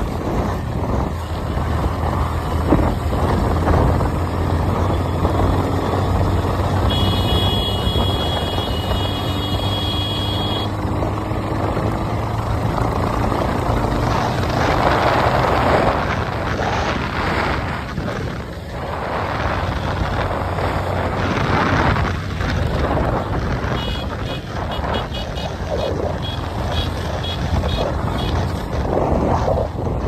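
Motorcycle engine running steadily while riding, with a rushing noise that swells a few times. A high steady tone sounds for a few seconds about a quarter of the way in, and a quick series of short high beeps comes near the end.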